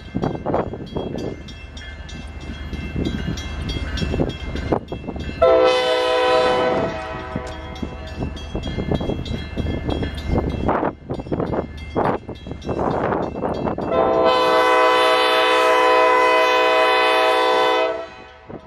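Diesel locomotive air horn sounding for a grade crossing: a blast of about a second and a half, then a longer blast of about four seconds, each a steady multi-note chord. A low rumble from the approaching train runs beneath it.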